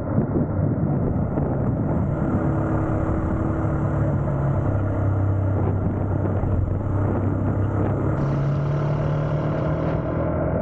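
KTM Duke motorcycle engine running at a steady cruise, with wind and road rush over the microphone.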